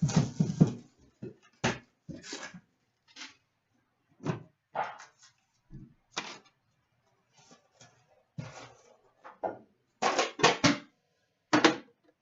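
A collector's tin of hockey card packs and its foil packs being handled and opened: an irregular string of short rustles, scrapes and knocks, with a quick cluster of louder ones near the end.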